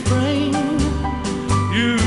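A 1960s pop record playing: a steady bass-and-drum beat at about two beats a second under a wavering melody line.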